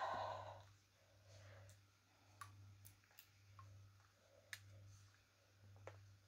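A few scattered, sharp little clicks of a new wooden Backun Beta clarinet's metal keys and joints being handled, spread irregularly over near-silent room tone. A brief breathy rush of noise fades away in the first half-second.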